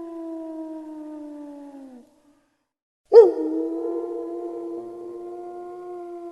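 Wolf howling: two long, drawn-out howls. The first slowly falls in pitch and fades out about two seconds in. After a second of silence the second starts sharply and loudly, then holds a steady pitch.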